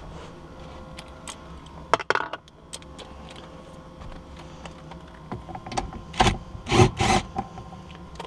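Clicks and light metallic rattling as a socket is handled, then a cordless drill fitted with a 13 mm socket runs in three short bursts about six to seven seconds in, backing out a center console bolt.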